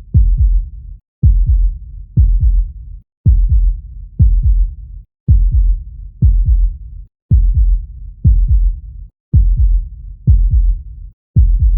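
Human heartbeat sound: deep, steady lub-dub thumps at about one beat a second.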